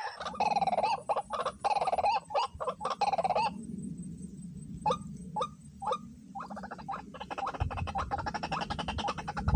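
White-breasted waterhen calling in a rapid run of repeated notes. The calls break off, come back as three single notes, then start again as a faster run near the end, over a steady low hum.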